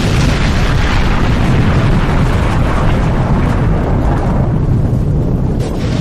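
Explosion sound effect: the long, loud rumble of a huge blast, continuous and heavy in the low end, easing slightly near the end.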